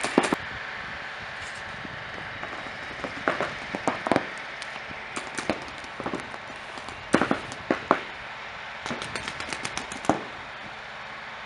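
Paintball markers firing: scattered single pops and short strings of shots, with a quick string of about eight shots near the nine-second mark.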